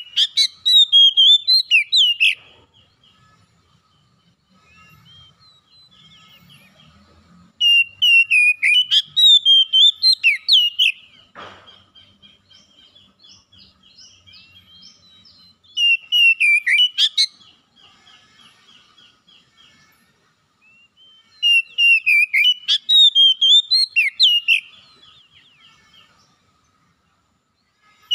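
Oriental magpie-robin (kacer) in full song: four loud bursts of fast, varied whistles and chirps, a few seconds apart, with softer twittering notes between them.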